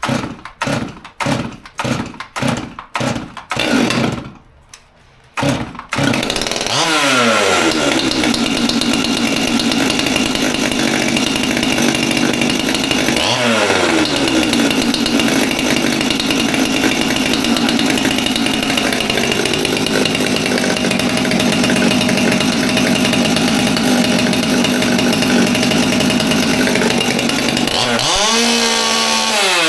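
Stihl MS200T two-stroke top-handle chainsaw being pull-started with the choke on: a quick run of starter-cord pulls about two a second, then it catches about six seconds in and runs steadily at high speed. Its pitch dips and climbs back twice.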